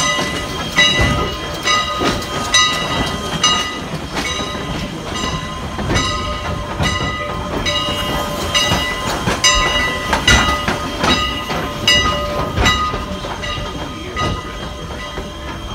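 Wheels of a slow-moving train clicking over the rail joints about once a second, each click with a short metallic ring, over the steady rumble of the cars rolling on the track.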